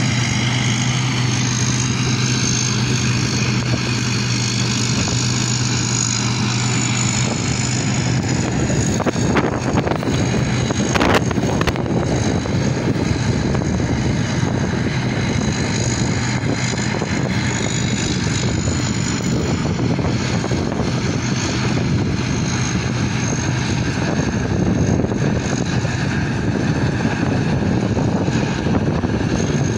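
Rice combine harvester (K. Charoen Karnchang) running under load while harvesting, a steady engine and threshing drone whose low hum weakens after about ten seconds as the machine moves away. A couple of brief knocks come around ten seconds in.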